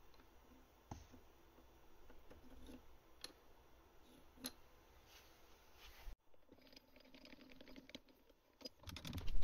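Light metallic clicks and taps as a flat steel bar is set against the workpiece on the milling machine's rotary table. A louder knock comes near the end.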